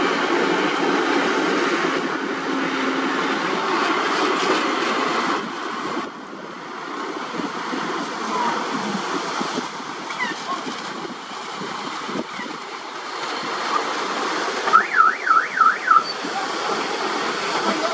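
Dump truck's engine running while its raised tipper body empties a load of soil and rock, the dirt sliding and tumbling out onto the pile; the engine noise eases about six seconds in. Near the end a short warbling whistle rises and falls four times.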